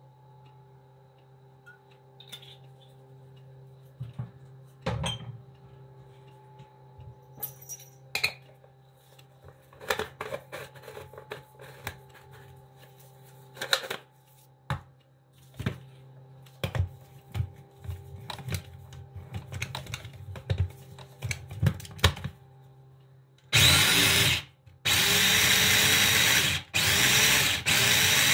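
Scattered knocks and rustles of kitchen handling, then an electric mini food chopper is switched on about 23 seconds in. It runs loudly in pulses with short breaks, chopping coriander with spices and olive oil.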